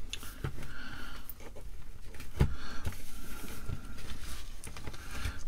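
Plastic case of an Atari 410 cassette program recorder being handled and pulled apart on a bench: scattered light clicks and knocks of plastic, the loudest about halfway through.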